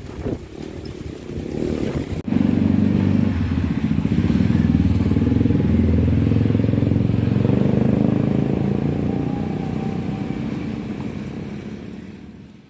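Wind buffeting the microphone, then about two seconds in a sudden change to a motor vehicle engine running steadily, which fades out at the end.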